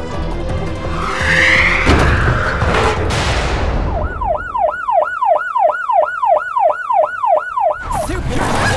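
Over background music, a rising whoosh and a short burst of noise in the first three seconds, then a police siren yelping rapidly, about three rising-and-falling wails a second, for about four seconds before it cuts off.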